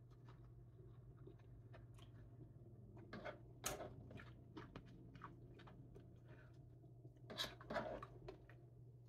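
Faint sounds of a person eating from a bowl with a spoon: chewing and spoon-on-bowl clicks, with two louder clusters about three and a half and seven and a half seconds in, over a steady low hum.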